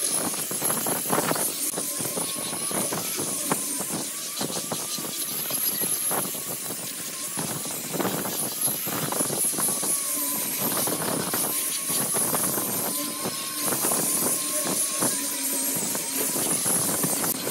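Angle grinder fitted with a sanding pad, running and sanding across a wooden slab: a steady high motor whine over a sanding hiss, its pitch wavering slightly.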